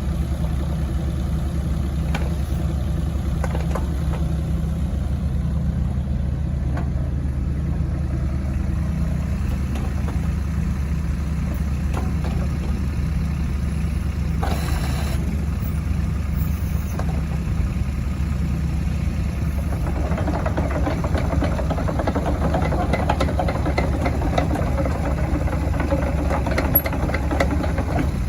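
Kubota U-20-3S mini excavator's diesel engine running steadily at idle, a low even drone. About two-thirds of the way through, a busier mechanical clatter joins it.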